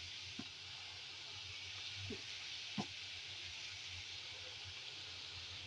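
Chicken and green chillies sizzling steadily in a metal pan, with three light knocks of a slotted spatula against the pan.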